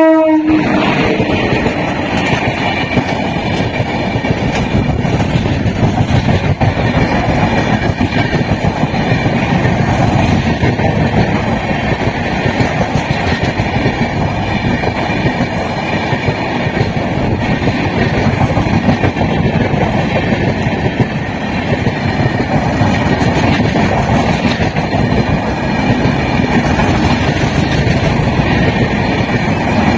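An Indian Railways passenger train passing close at speed: a loud, steady rumble and rattle of coaches on the rails, with wheels clacking over rail joints. A locomotive horn cuts off at the very start.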